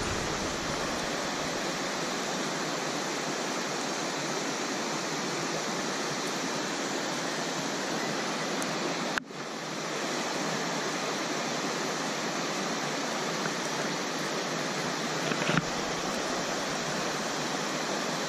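Mountain stream rushing over rocks close by, a steady, even rush of water. It cuts out for an instant about nine seconds in.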